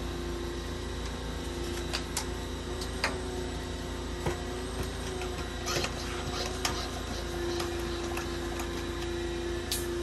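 A steady machine hum with a held mid-pitched tone, broken by a few scattered light clicks and taps.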